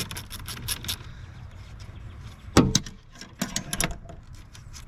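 A sharp clunk about two and a half seconds in, then a few lighter clicks about a second later: parts and wiring connectors being handled around the truck's fuse box.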